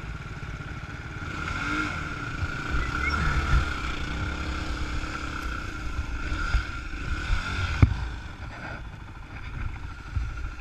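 Yamaha dirt bike engine idling, then pulling away about a second in and running along a rough gravel trail. One sharp knock comes near eight seconds in.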